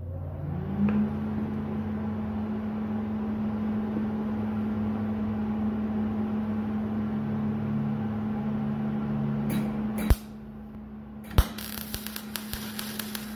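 A steady machine hum, then about eleven seconds in a sharp pop as the MIG arc strikes from a spool gun feeding aluminum wire, followed by the dense crackle of aluminum MIG welding.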